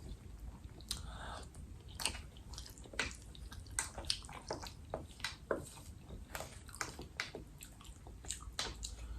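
A person chewing soft, wet food, jerk tofu with rice: irregular wet mouth clicks and smacks, a few to a second.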